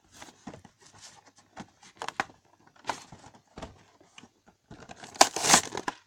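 Cardboard-and-clear-plastic action figure packaging being torn and crinkled open by hand, in irregular crackles and rips that grow louder near the end.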